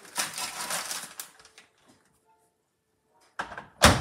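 A plastic microwave bag crinkling as it is pushed into a microwave oven, then a pause, then two sharp knocks near the end, the second and louder one the microwave door being shut.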